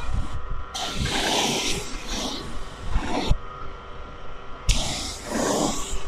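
Pressure-washer spray gun hissing in two bursts of about two and a half seconds each, with a short pause between, as the water jet hits the coil of a window air conditioner during cleaning. A faint steady hum runs underneath.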